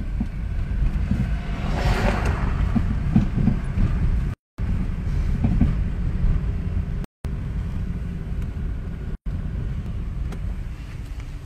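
Low, steady rumble of a moving vehicle, with a brief louder, busier passage about two seconds in. The sound cuts out completely for a moment three times.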